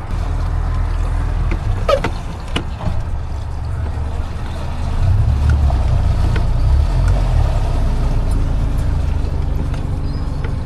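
A motor running with a steady low rumble, which grows louder about halfway through, along with a few light knocks.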